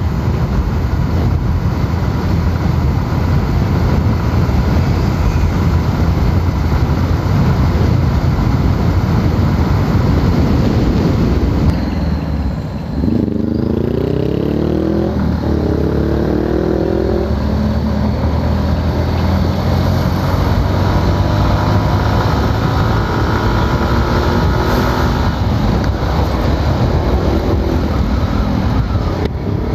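Yamaha Sniper 150's single-cylinder four-stroke engine heard on board while riding, under steady wind and road rush. About halfway through it eases off briefly, then rises in pitch several times in quick succession as it accelerates through the gears.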